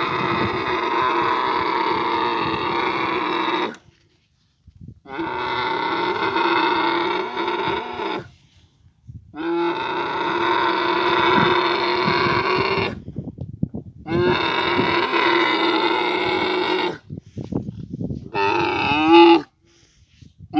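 Dromedary camel bellowing during mating, in long, drawn-out calls: four of about three to four seconds each with short pauses between them, and a shorter fifth call near the end.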